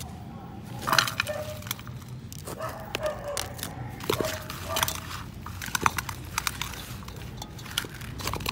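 Chopped onions, tomatoes and spices being dropped and pressed by hand into a metal pan, giving a string of clattering knocks and rustles. Several short, pitched cries sound through it.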